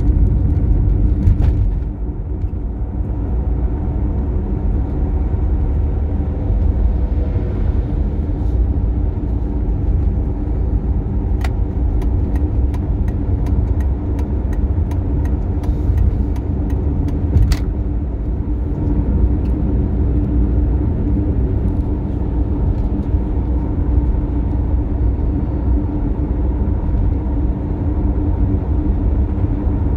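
Toyota Tercel driving at highway speed: a steady engine and road drone with a constant hum. A quick run of sharp clicks comes through from about 11 to 18 seconds in.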